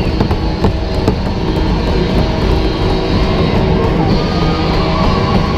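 Loud rock music with guitar, played as goal celebration music in an ice hockey arena.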